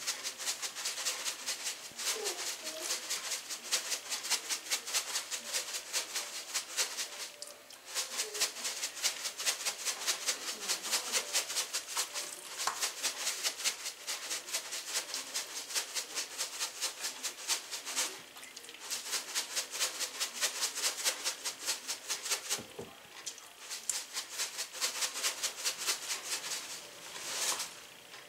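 Black pepper shaken from a plastic shaker container over fish fillets in a glass dish. Fast, even rattling shakes, several a second, in long runs broken by a few brief pauses.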